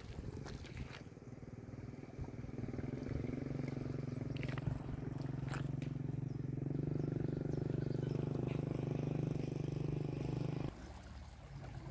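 A motor vehicle's engine running steadily, a low hum that builds over the first few seconds and cuts off suddenly near the end.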